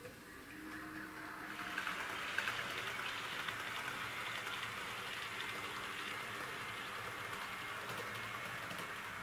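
HO-scale model tank cars rolling along metal track: a steady rushing wheel-on-rail noise with small clicks, swelling in about a second and a half in.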